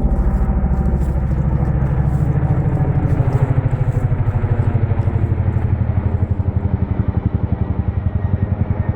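Helicopter flying low overhead: a loud, fast, even beat of rotor blades over a low engine hum, easing off slightly near the end.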